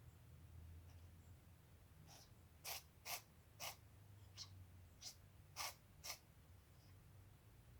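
Persian cat sneezing: a run of about eight short, quick sneezes over roughly four seconds, from a cat with a runny nose.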